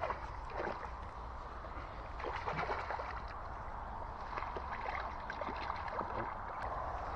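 River water running in a steady rush, with a few faint scattered ticks and splashes.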